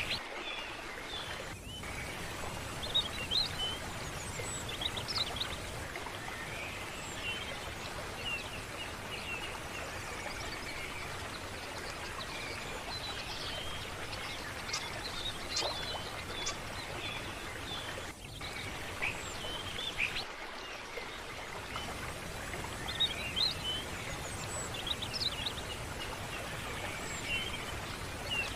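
Small birds chirping and twittering in scattered short calls over a steady rush of running water.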